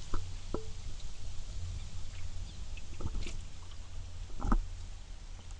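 Canoe under way on open water: wind rumbling on the microphone, with a few short knocks and splashes of paddle and water against the hull, the loudest about four and a half seconds in.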